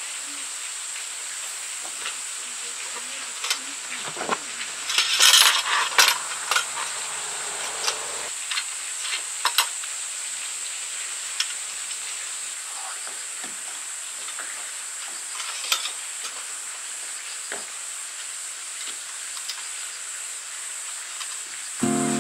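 Gloved hands handling and assembling a Coleman Northstar gas lantern: scattered metal clicks and taps from its cage, cap and gas canister, with a louder scraping rustle about five seconds in. A steady high-pitched hiss runs underneath.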